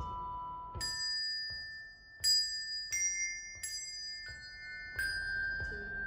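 Handbells ringing a slow melody one note at a time: about six single strikes, each bell left to ring on under the next.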